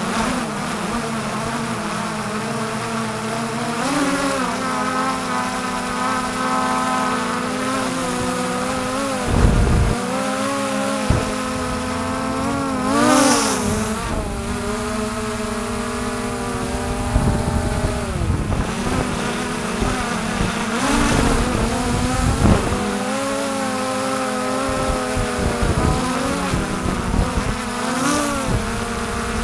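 Xiaomi quadcopter drone's motors and propellers buzzing steadily in flight, the pitch briefly rising and falling about halfway through as it manoeuvres. Gusts of wind rumble on the microphone now and then.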